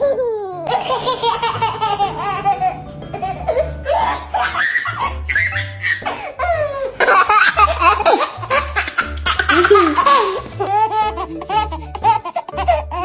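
A baby laughing in repeated peals of giggles and belly laughs, over background music with a low bass line.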